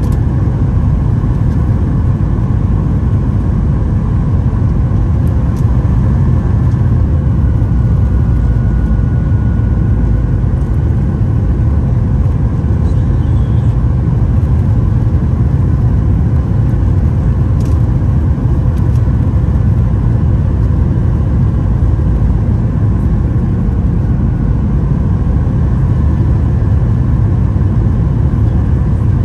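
Steady low rumble of engine and airflow noise inside the cabin of a Boeing 737-800 airliner, with a faint high hum.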